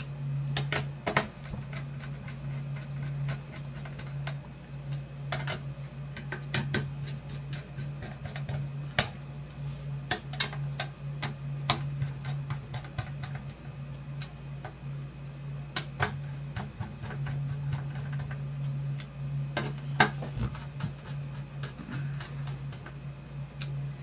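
Small screwdriver tightening the backplate screws of a graphics card: irregular light clicks and ticks of the bit turning in the screw heads, over a steady low hum.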